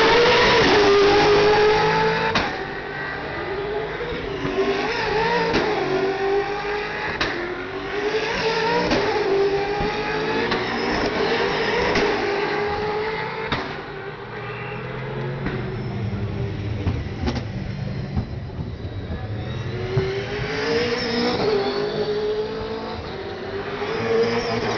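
Racing car engines passing by one after another, each engine note rising and falling in pitch as the car goes past. The loudest pass is in the first two seconds.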